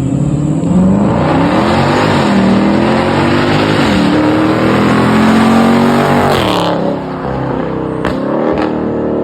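Dodge Charger Scat Pack's 392 HEMI V8, mufflers deleted but catalytic converters still in place, accelerating hard. The revs climb, drop back at upshifts about two and four seconds in, and climb again. The throttle shuts about six and a half seconds in, followed by two sharp cracks near the end.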